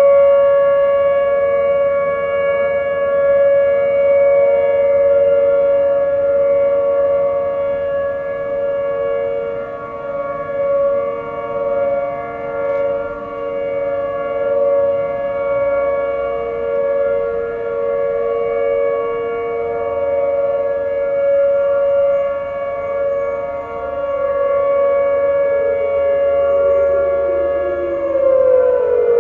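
Several outdoor warning sirens (Whelen 2805/2806 and 2905 and Federal Signal models) sounding a steady alert tone together, the loudest a Whelen 2905's pitch near 560 Hz. About two-thirds of the way in, a lower tone begins to slide down. Near the end the loudest tone and its overtones start falling too as the sirens wind down at the close of the test.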